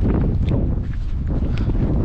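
Blizzard wind buffeting the microphone in a steady low rumble, with a couple of faint knocks or steps about half a second and a second and a half in.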